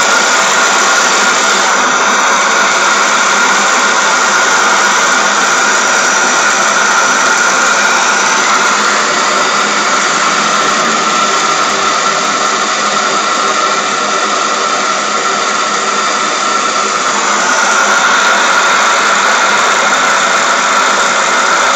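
Homemade three-cylinder single-acting oscillating model steam engine running fast: a steady hissing whir with a high whine running through it. It eases off a little past the middle and picks up again near the end.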